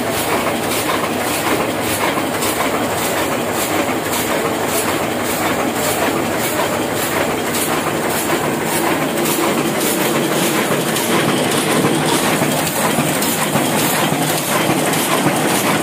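Old Hashimoto sheetfed offset printing press running, a steady mechanical clatter with an even beat of a couple of clacks a second as it cycles sheets through.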